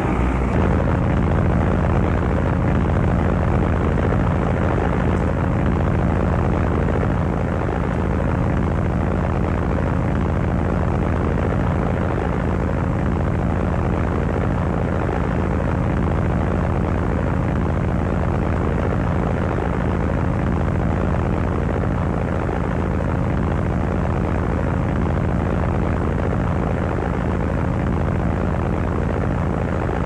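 Steady, even drone of a four-engine propeller flying boat in flight, its radial engines running at cruise without a break.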